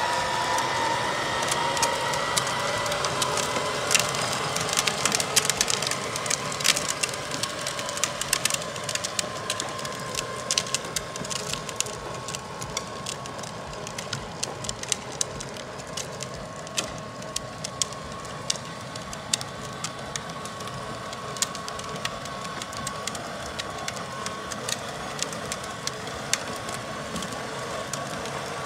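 A small electric ride-on go-kart's motor whines steadily at one pitch. The hard plastic wheels of the kart and a towed wagon crackle over the asphalt, most densely in the first dozen seconds.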